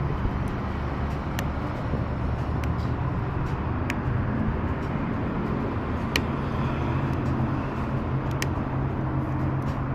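Steady low rumble of a vehicle engine running, with a few faint sharp clicks of a Lishi pick-and-decoder tool being worked in a truck's door lock.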